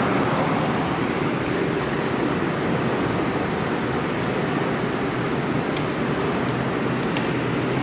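Steady mechanical background noise, an even rushing hiss over a low hum, with a few faint light clicks in the second half.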